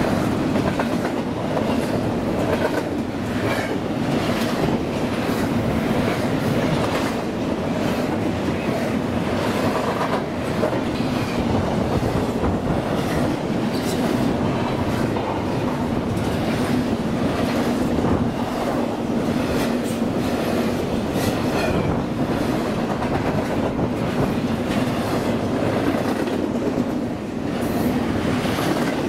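Freight train cars rolling past, their steel wheels clicking over rail joints on top of a steady rumble.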